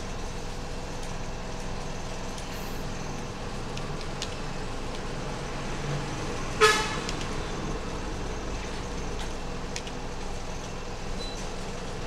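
Steady background rumble with one short vehicle horn toot about six and a half seconds in.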